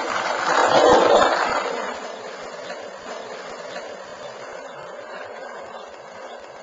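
Skateboard wheels rolling on asphalt under a dog, a steady rolling noise, with a louder rush of noise that swells and fades about a second in.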